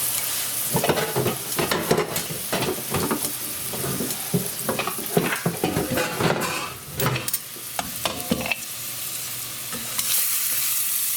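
Tomatoes, onion and bacon sizzling in a frying pan with a little added water, while a utensil stirs and knocks against the pan in quick irregular clicks through most of the first eight seconds. The frying goes on alone after that.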